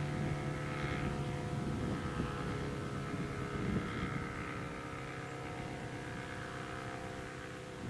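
ASC Cyclone C-125 outdoor warning siren sounding the steady tone of a full-alert test, a held chord of several pitches that gradually gets a little quieter. The siren is reverse wired.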